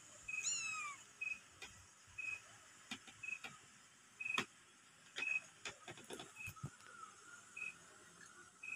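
A kitten gives one short mew that falls in pitch, about half a second in, among scattered faint clicks and rustles of bedding as the kittens play and are handled. A short high chirp repeats about once a second in the background.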